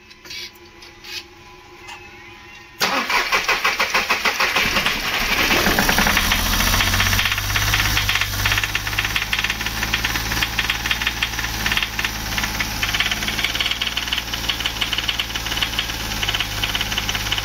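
VW Polo 1.2 three-cylinder engine is cranked by the starter about three seconds in, catches a few seconds later and runs on with the accelerator held, with a rapid tapping knock. The mechanic blames the knock on a head gasket too thin, letting the valves touch the pistons, or on a faulty aftermarket piston, since timing and injectors are already set right.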